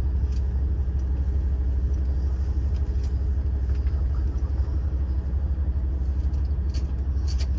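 Steady low rumble inside the cabin of a stopped diesel express train, its engines idling while it waits to restart, with a few faint clicks near the end.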